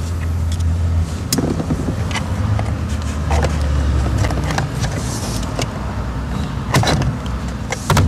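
A flathead screwdriver clicking and scraping against the shifter base as the stock rubber shifter bushings are pried out: a handful of sharp clicks, two close together near the end. A steady low rumble runs under it.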